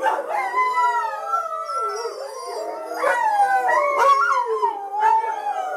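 A group of sled dogs howling together in their kennel pens, many overlapping, wavering howls sliding up and down in pitch without a break.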